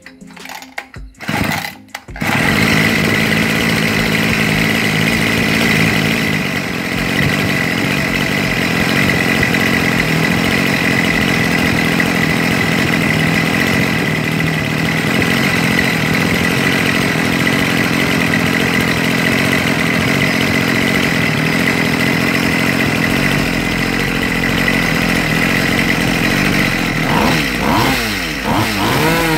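Rebuilt Mitsubishi T140 two-stroke brushcutter engine starting about two seconds in, then idling steadily. Near the end the throttle is blipped and the revs rise and fall. This is the engine's test start after the rebuild.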